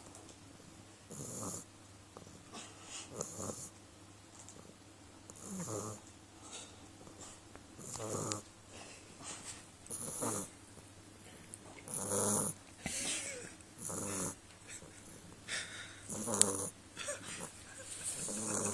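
Beagle snoring in its sleep, one snoring breath about every two seconds, each with a hiss of air.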